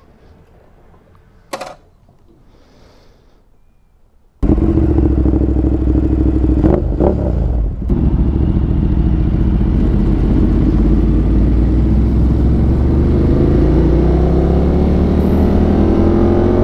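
Yamaha R1M sport bike's inline-four engine, which comes in suddenly and loud about four seconds in after a quiet stretch with a single sharp click. It runs steadily, then rises in pitch as the bike accelerates through the last few seconds.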